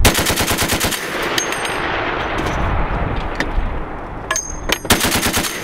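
Browning M2 .50 calibre heavy machine gun firing in bursts: a rapid string of shots, about nine a second, for roughly the first second, then a few shots and a second short burst near the end. The noise carries on between the bursts.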